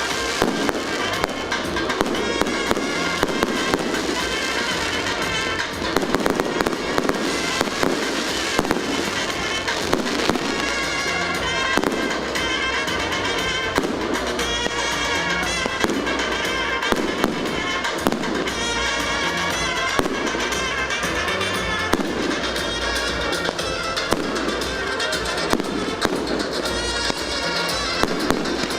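Continuous fireworks display: dense crackling with many sharp bangs, over music playing throughout.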